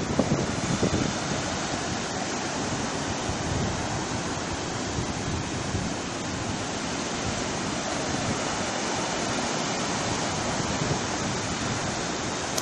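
Steady rushing noise of sea surf on the shore, mixed with wind on the microphone.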